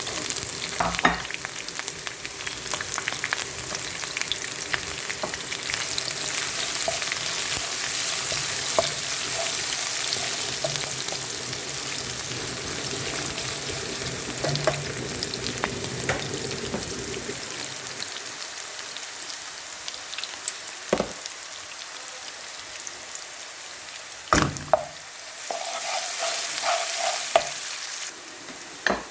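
Food sizzling as it fries in a pan while it is stirred, with a few sharp knocks of the stirring utensil against the pan.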